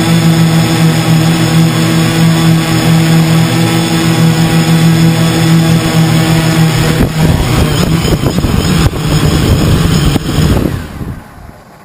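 Drone motors and propellers running with a steady hum. From about seven seconds in the hum wavers, with a couple of knocks as the drone sits on the ground and tries to lift again, then the motors spin down and stop about eleven seconds in.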